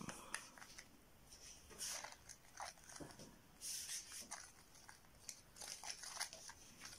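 Plastic spoon stirring and scraping a thick cream mixed with ground alum in a small jar: faint, irregular scrapes and clicks.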